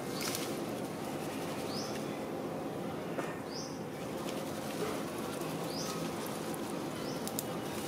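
A bird gives a short, high, rising chirp four times, about every one and a half seconds, over steady background noise.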